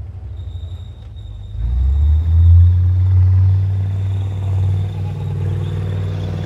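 Leopard 1 A2 tank's ten-cylinder MTU multi-fuel diesel engine rumbling as the tank drives by, growing much louder about two seconds in as it comes close and turns past.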